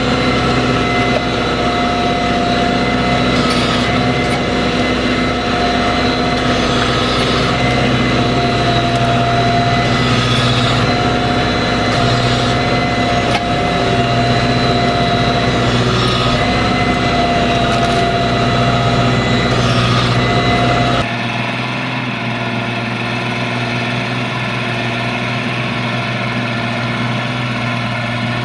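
Farm tractor diesel engine running steadily under heavy load while it pulls a reversible mouldboard plough through wet, muddy ground. About 21 s in, the sound changes abruptly to a somewhat lighter tractor engine sound with less low rumble.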